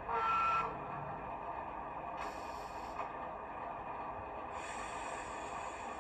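DCC sound decoder in an O gauge Class 08 diesel shunter model, playing the locomotive's idling engine through its small speaker. A short louder sound comes right at the start, with a burst of hiss a little after two seconds and a steadier hiss from near five seconds on.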